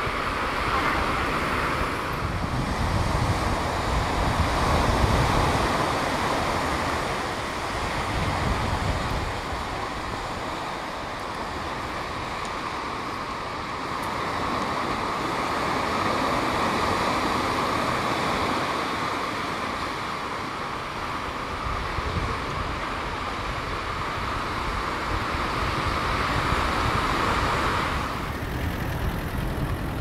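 Wind buffeting the microphone over a steady outdoor rushing noise, with the character of the sound shifting about two seconds in and again near the end.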